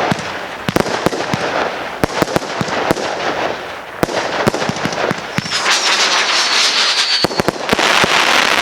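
Consumer firework cakes firing a barrage: rapid sharp bangs and crackling, with a high whistle slowly falling in pitch for about two seconds past the middle, then a dense burst of crackle near the end.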